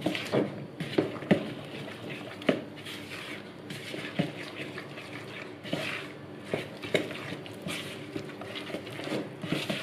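Metal spoon stirring flour into a soft curd-and-yeast dough in a plastic bowl, with irregular clicks and scrapes as the spoon knocks against the bowl.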